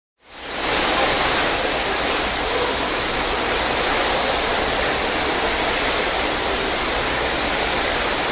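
Water rushing steadily over the surface of an indoor standing-wave surf machine as a surfer rides the wave, with a low steady hum underneath.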